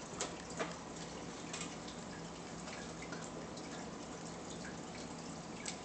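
Aquarium water trickling and dripping, a steady even wash with a few faint drips, over a low steady hum.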